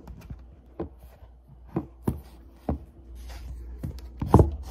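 A few soft knocks and rustles of a phone being handled and set against a box, the loudest near the end, over a steady low hum.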